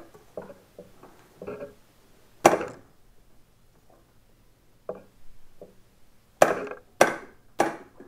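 Sharp knocks from a socket wrench on the 36 mm aluminium steering stem nut of a Yamaha R1 as it is forced loose: one loud crack about two and a half seconds in, then three more about half a second apart near the end, with faint small clicks of the socket between.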